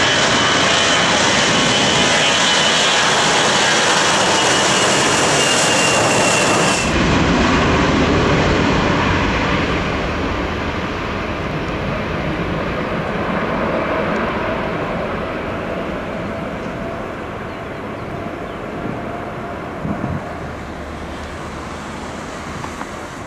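Jet airliner engines at high power on the runway, loud, with a high whine that falls slightly in pitch. About seven seconds in, the sound changes abruptly to a deeper, duller jet rumble from another aircraft that slowly fades.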